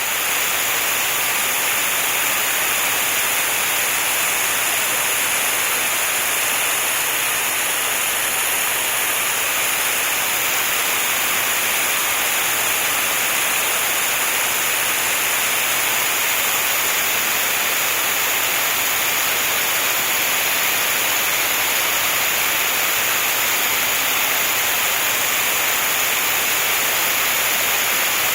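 A steady, even hiss of broad noise, loudest in the upper range, with no changes or individual events.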